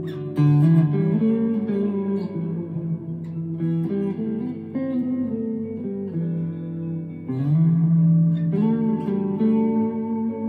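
Chapman ML3 Pro Traditional electric guitar with Seymour Duncan Hot Tele pickups played slowly: picked notes ring on and overlap into a sustained wash, with a couple of notes bent upward in the second half.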